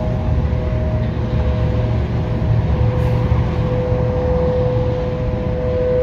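Distant outdoor warning sirens holding a steady alert tone, which grows louder near the end, under the low rumble of passing heavy traffic.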